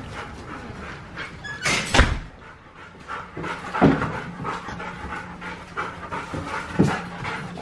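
Dogs panting after running and playing in the yard, broken by three sharp knocks about two, four and seven seconds in, the first the loudest.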